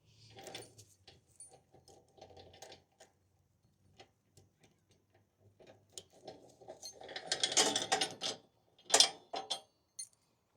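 Ratchet wrench clicking in irregular runs as it is worked back and forth, with the densest, loudest run of clicks about two-thirds of the way through and a sharp clatter just after.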